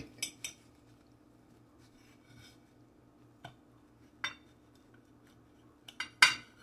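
A table knife clicking and clinking against a ceramic plate while a baked sausage roll is cut: a few short, sharp knocks scattered through, the loudest pair near the end, over a faint steady hum.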